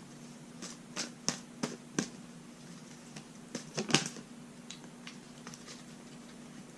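Oracle cards being shuffled by hand: a series of light clicks and snaps as the cards knock together, with a denser flurry about four seconds in.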